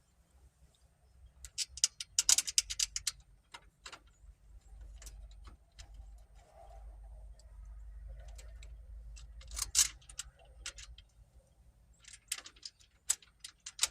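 Small metal hardware clicking and clinking in clusters as screws for a storm door handle are fitted and started by hand.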